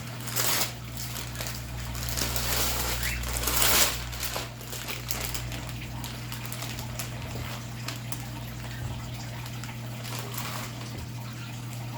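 Wrapping paper being torn and crinkled as a present is unwrapped: a short rip about half a second in, a longer, louder tear from about two to four seconds in, then scattered light rustling.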